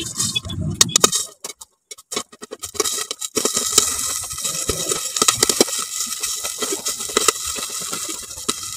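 Food cooking in hot oil in a pan. Scattered clicks and knocks come first, then from about three seconds in a steady sizzle thick with small crackles.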